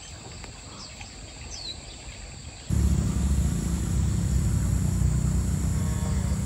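Quiet outdoor ambience with a few short bird chirps, then a bit under three seconds in a loud, steady, low mechanical hum starts abruptly and keeps going.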